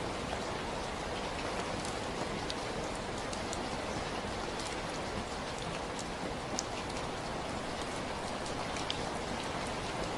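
Steady rain falling, an even hiss of rainfall with scattered individual drops ticking sharply on a surface now and then.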